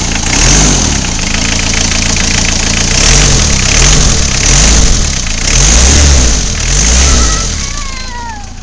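1982 Isuzu I-Mark diesel engine, freshly fitted with a new fan belt, revved up and let fall back about six times in a row. Near the end a thin high whine falls away as the engine settles.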